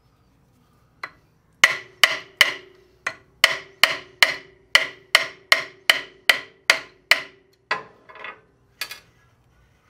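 Small brass hammer tapping repeatedly on a punch held in pliers, driving a tight roll pin out of a bench grinder's worm-gear shaft. About a dozen and a half sharp metallic blows, two or three a second, each with a short ring, slowing and trailing off near the end.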